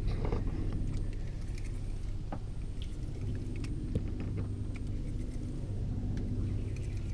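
Steady low drone of a boat engine running, with a few light clicks and knocks from the wooden boat and fishing gear.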